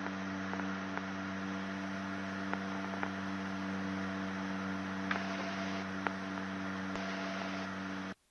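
Steady, even drone of the Gulfstream Turbo Commander's twin turboprops heard through the cockpit intercom, with a few faint clicks. The audio cuts out completely about eight seconds in.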